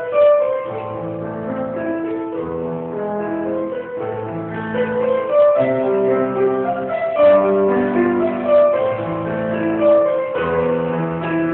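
Instrumental background music: a melody of held notes that change about every half second.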